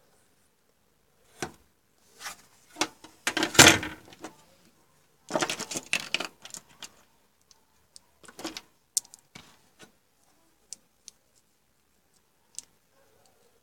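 Handling noise: bursts of clicking and clattering as hands work over a motherboard and handle small removed electrolytic capacitors. The bursts are loudest about three and a half seconds in and again around six seconds, then thin out to a few light ticks.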